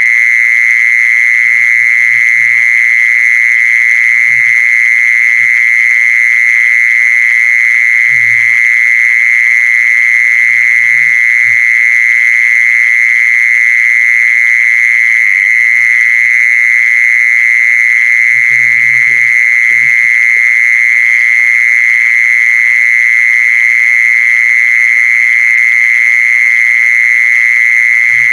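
Animal lure-call recording: a loud, steady high-pitched drone throughout, with short low calls repeating every two to three seconds beneath it.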